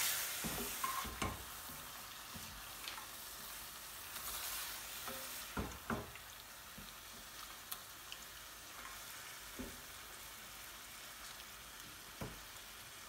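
Lamb pieces with garlic and ginger paste sizzling in a stainless steel pan as a spatula stirs them: a steady frying hiss with a few scrapes and knocks of the spatula against the pan.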